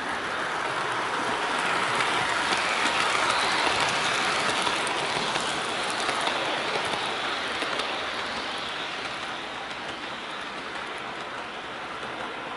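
Model trains running: the Bachmann On30 Thomas Kinkade Christmas Express passes close by, the whir of its motor and its wheels on the rails growing louder and then fading away, with a smaller N scale train running alongside.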